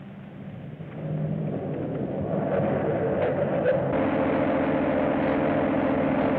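Car engine running at speed, growing louder over the first few seconds and then holding steady.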